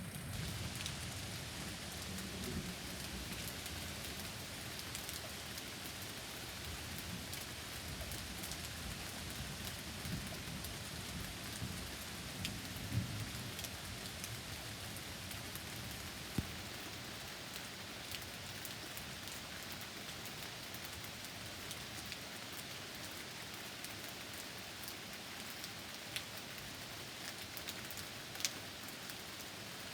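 Steady rain falling, with scattered drops ticking close by. Low rumbles of distant thunder come a couple of seconds in and again about thirteen seconds in.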